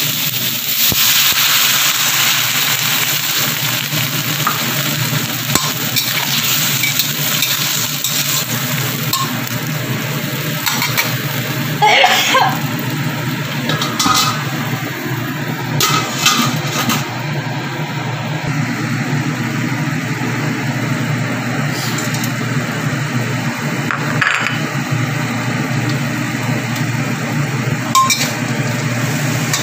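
Long beans stir-frying in a stainless steel wok, sizzling steadily, with a metal spatula clinking and scraping against the pan a few times. A steady low hum runs underneath.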